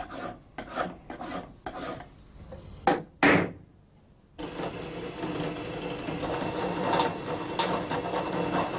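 Hand file rasping over nickel-silver knife-handle fittings clamped in a vise, in separate strokes about twice a second, the last and loudest about three seconds in. After a short pause, a drill press motor runs steadily and gets louder near the end.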